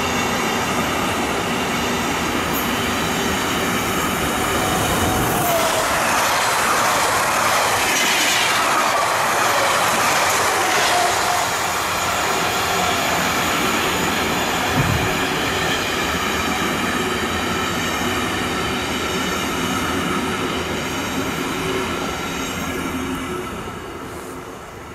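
A long intermodal freight train of container and trailer wagons rolls past with clattering wheels and a steady high-pitched wheel squeal. From about five seconds in, a passenger electric multiple unit passing on the other track adds a louder rush. The sound fades out near the end.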